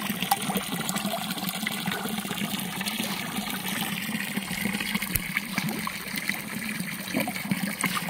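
Steady rush of water flowing into a catfish pond, with many small splashes and slaps as a crowd of catfish churn at the surface.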